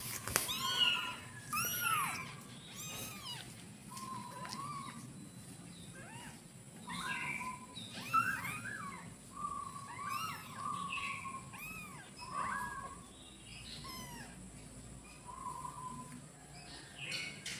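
Kittens meowing over and over, short calls that rise and fall in pitch and at times overlap: kittens crying to be nursed.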